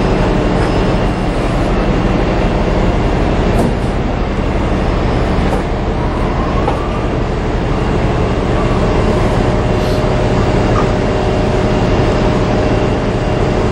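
Steady loud rumbling noise with a hiss over it, heard on the balcony of a ship under way, with no distinct events.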